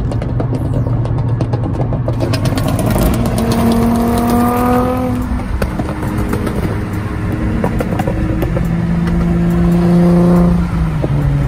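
Car engines accelerating on a highway, heard from inside a moving car: the engine note climbs in pitch for a couple of seconds and then drops back, twice, over steady road rumble.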